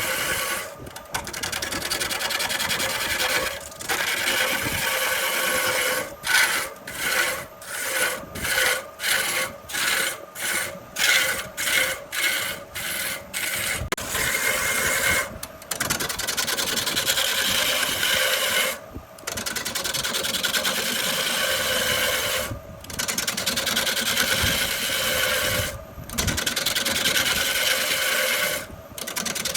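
A turning tool scraping and cutting wood that is spinning on a lathe. It makes a steady rasping sound with brief breaks where the tool lifts off. Through the middle it works in quick repeated passes, about one and a half a second.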